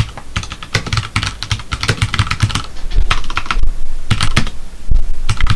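Typing on a computer keyboard: a quick run of keystrokes with a brief pause a little past the middle, entering a handler label in assembly code.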